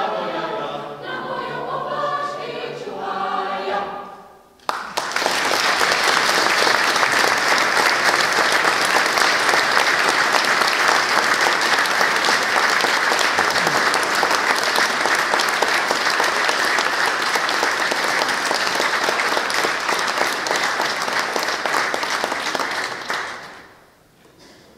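A mixed choir of women's and men's voices sings unaccompanied, breaking off about four seconds in at the end of the piece. After a short gap the audience applauds steadily for most of the rest, the clapping dying away near the end.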